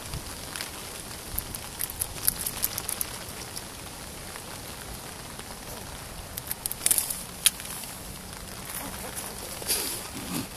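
Steady light rain, with scattered sharp ticks that come in clusters.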